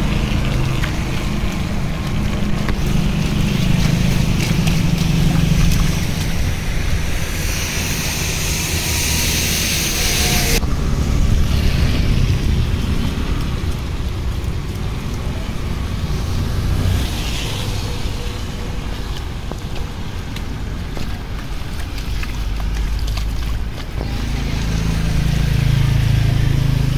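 Low, steady rumble of a vehicle running, with the hiss of heavy rain and water on a waterlogged road. A louder hiss starts about seven seconds in and cuts off suddenly a few seconds later.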